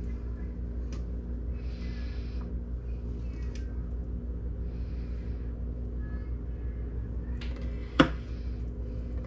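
Fillet knife slicing along a trout fillet on a wooden fillet board in a few short, soft scraping strokes, over a steady low hum. One sharp knock about eight seconds in is the loudest sound.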